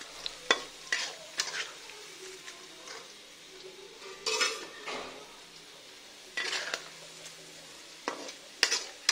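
Sliced onions frying in oil in a karahi, a low steady sizzle, while a metal slotted spatula stirs them, scraping and clinking against the pan in irregular strokes with short pauses between.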